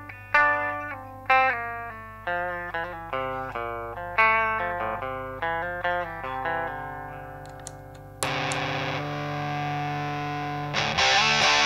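Electric guitar played through a Rullywow Eaglet drive pedal, a clone of the EarthQuaker Devices Talons. First comes a run of picked single notes with a fairly clean tone, each ringing and fading. About eight seconds in, a heavily distorted chord is struck and held, and more distorted strums come near the end.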